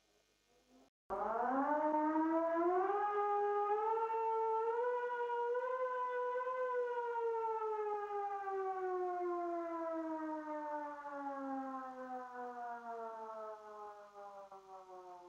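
Civil-defence siren wail. The fading end of a falling tone gives way to a moment of silence. About a second in the siren starts abruptly, winds up in steps for about five seconds, then winds down slowly, its pitch falling steadily to the end.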